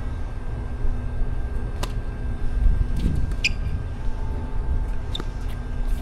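Steady low outdoor rumble with a few scattered sharp taps of a tennis ball bouncing on a hard court.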